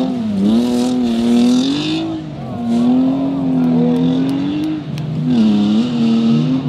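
Rally car engines revving up and down hard as the cars slide through a loose dirt section, with a hiss of dirt spraying from the tyres. A second car comes through near the end.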